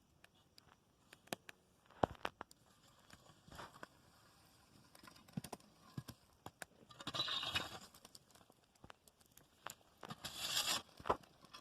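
Embers and ash being scraped off a bread mold buried in a campfire: scattered clicks and small knocks, with two longer scraping passes, one about seven seconds in and one near the end.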